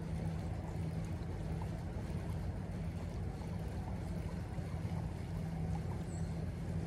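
Steady rush of flowing creek water, with a constant low rumble underneath.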